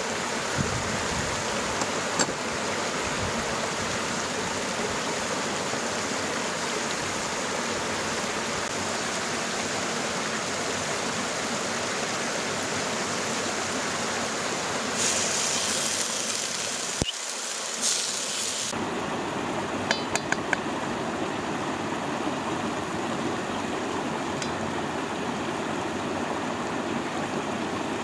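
Mountain stream running steadily, with a brief louder hiss around the middle and a few light clinks of cookware after it.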